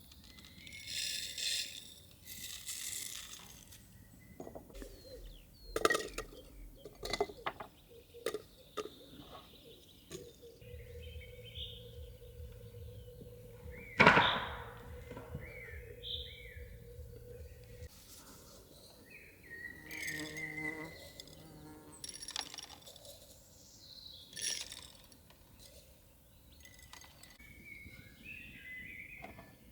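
Scattered sharp knocks and clicks, one louder click about midway, with short bird chirps in the background.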